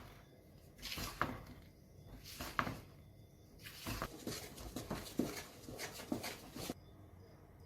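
Wooden mwiko folding flour into cake batter in a bowl: repeated scraping, squelching strokes with a few sharp knocks of the stick against the bowl, stopping near the end.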